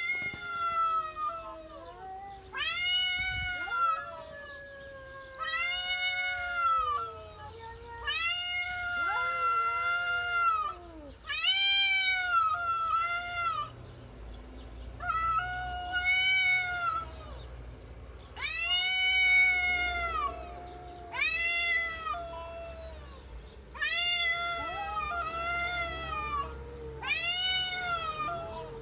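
Two domestic cats yowling at each other in a territorial standoff, a resident cat and a stray intruder. Long drawn-out yowls, each a second or two, wavering up and down in pitch, come one after another about a dozen times, sometimes overlapping.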